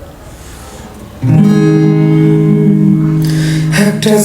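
Instrumental intro of a Bengali song: faint at first, then full held chords come in loud about a second in.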